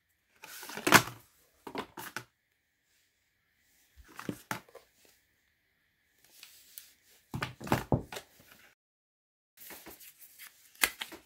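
Handling noise of laptop packaging: a cardboard sleeve and a plastic power brick with its coiled cable being taken out and turned over in the hands, then a cardboard envelope slid out. It comes as several short bouts of knocks and rustles with quiet gaps between them, the loudest knock about a second in.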